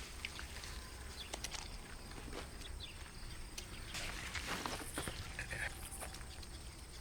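Quiet outdoor ambience with scattered faint ticks and a few short, high chirps.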